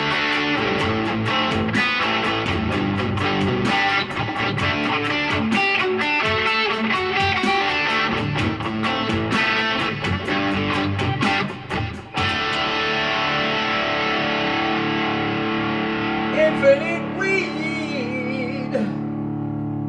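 PRS electric guitar playing a rock song: a busy run of chords and notes, then about twelve seconds in a chord is struck and left ringing, with a few wavering high notes over it near the end.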